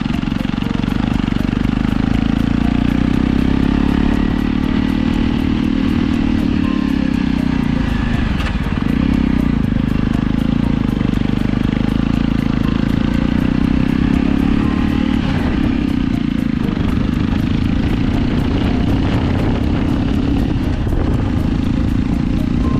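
JAWA 42 motorcycle's single-cylinder engine running under load while riding up a hill road, heard from the rider's seat with wind rush on the microphone. The engine note drops and picks up again about eight seconds in.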